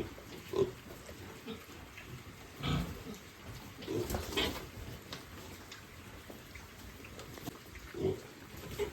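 Piglets grunting: several short grunts, spaced a second or more apart.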